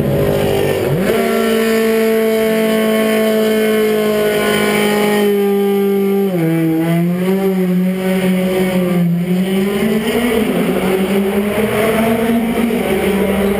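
Mercedes DTM race car's 4-litre V8 engine held at steady raised revs. The revs rise about a second in, dip and waver about six seconds in, then climb again near the end as the car pulls away.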